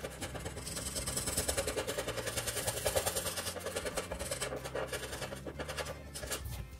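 A colouring pen scribbling quickly back and forth on paper, a rapid, even run of scratchy strokes as the hair of a drawing is filled in.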